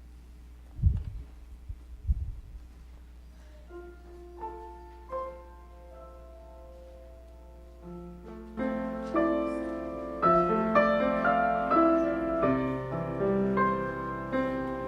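Piano introduction to a song: a few single notes ring out slowly, then full chords fill in about halfway through. Two short low thumps sound near the start.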